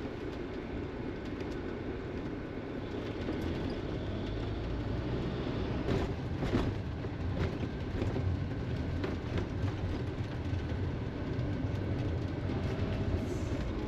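Cab of a motorhome on the move: steady engine and road rumble, with a few short knocks and rattles around the middle.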